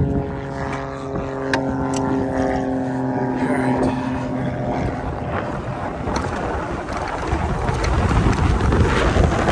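Electric dirt bike's QS273 mid-drive motor whining with a stack of steady tones as the bike moves off. After about four seconds the whine fades under a rushing noise of wind on the microphone, which grows louder toward the end as the bike picks up speed.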